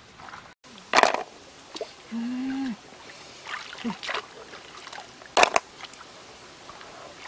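Stream water sloshing and splashing as hands rinse freshwater mussels, with two sharp loud splashes or knocks about a second in and past the five-second mark. A short steady low tone, falling at its end, sounds a little after two seconds.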